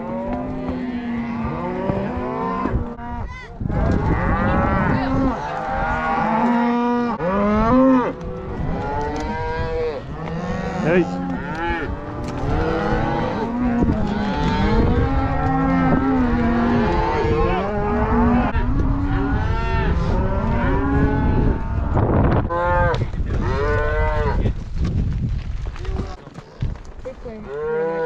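A herd of cattle mooing, many calls overlapping almost without a break, over a steady low noise.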